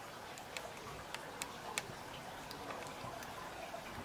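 Faint, irregular small clicks and ticks from plastic pipe fittings being handled, over a steady background hiss.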